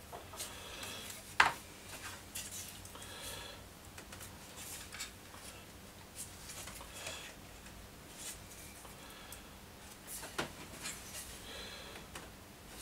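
Hands working the hard drive and its metal mounting frame out of a disassembled WD My Cloud enclosure: scattered clicks, scrapes and rubbing, with a few short creaks. A sharp click about a second and a half in is the loudest, and another comes near the end.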